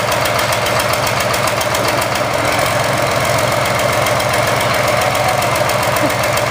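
Engine idling steadily with an even, repeating pulse; it is running with a misfire.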